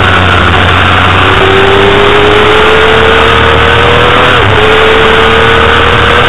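Honda CBR250RR's 250 cc inline-four race engine heard onboard, its note climbing steadily under acceleration, with a sudden brief dip about four and a half seconds in as it shifts up a gear, then climbing again. Heavy wind rush over the microphone underneath.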